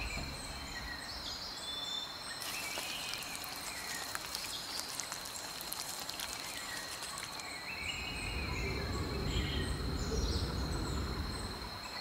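Tropical rainforest ambience: a steady high insect drone with short chirping calls repeating over it, and a low rumble that swells a few seconds before the end.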